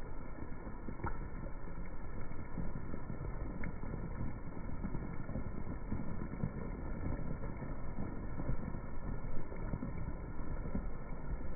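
Rain pelting wet brick pavement, heard slowed down and deepened by slow-motion playback: a steady, dull low rumble with the usual hiss of rain missing above.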